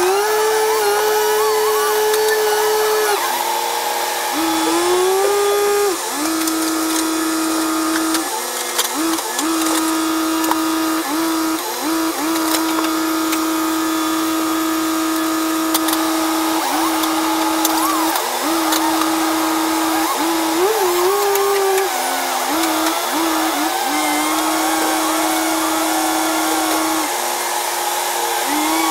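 Truck diesel engine and hydraulics driving a Prentice 2124 grapple loader as it lifts logs, sped up by the time-lapse into a steady high whine. The pitch holds, then steps up and down several times as the engine revs under the loader's work, with a few faint knocks.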